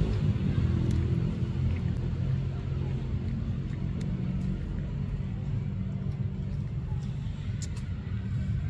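Low, steady rumble of a motor vehicle engine running, louder for the first few seconds and then easing a little, with a few faint clicks.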